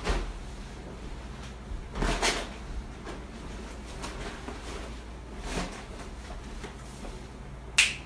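Packing noises as gear goes into a tote bag: rustling and knocks of items and bag handled, clustered near the start, about two seconds in and past five seconds. A sharp snap near the end is the loudest sound.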